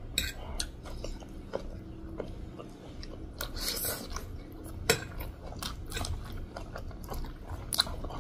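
Close-miked eating of pork chow mein noodles: chewing and slurping, with scattered short wet mouth clicks. The sharpest click comes about five seconds in.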